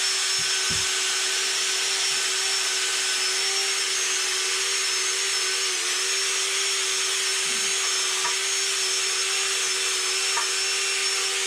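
A motor-driven cleaning tool running steadily: a constant hum under a loud rushing-air hiss, used to clean dirt off the VW T3 engine.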